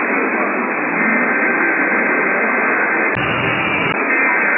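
Radio static: a steady hiss from a radio receiver, with faint steady whines in it. Near the end it changes for just under a second to a fuller, deeper noise, then returns to the same hiss.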